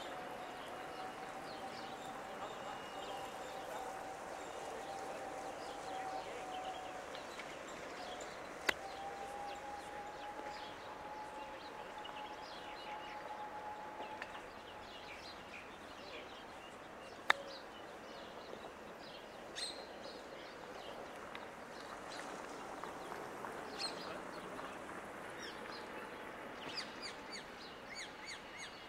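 Two crisp clicks of a 60-degree wedge striking golf balls on chip shots, several seconds apart. Birds chirp now and then over a faint steady drone.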